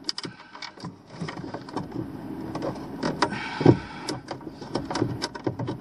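Handling noise as a hard-wired Surge Guard surge protector is held up and shifted into place against the wooden wall of an RV electrical bay: scattered clicks, scrapes and knocks of its housing and the cables, with one louder thump about three and a half seconds in.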